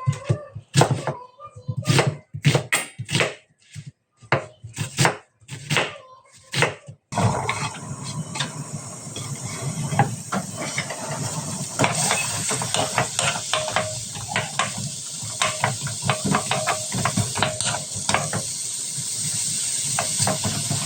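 Kitchen clatter of separate short knocks at first, then, from about seven seconds in, diced vegetables sizzling in an oiled frying pan with a spatula stirring and scraping against it.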